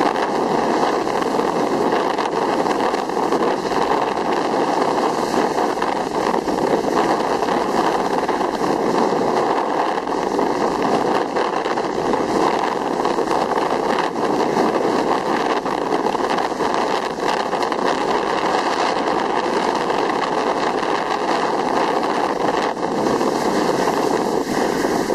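Steady rushing noise of skiing fast downhill: skis hissing and scraping over the snow, mixed with air rushing past the handheld camera.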